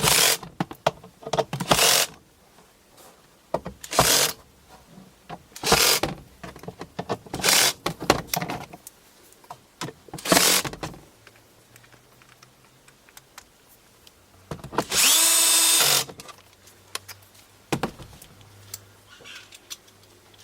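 Power drill with a hex screw bit driving screws home in a run of short bursts, then running for about a second in one longer steady whine, and a last short burst near the end.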